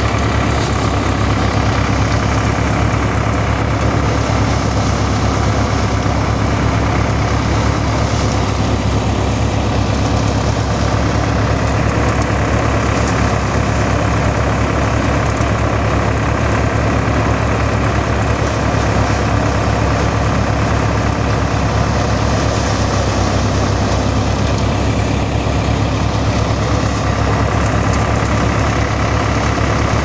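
Tractor diesel engine running steadily under load, driving a paddy thresher through its power take-off, with the threshing drum whirring along with it at an unchanging speed.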